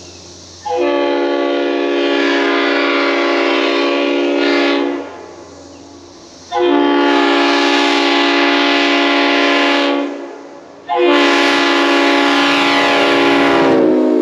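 Leslie RS5T five-chime locomotive horn, ex-CSX SD40 8236, sounding its chord in three long blasts of about four seconds each with short gaps between. The third blast sags in pitch as it ends.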